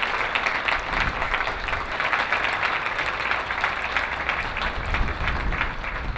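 Applause: many people clapping steadily.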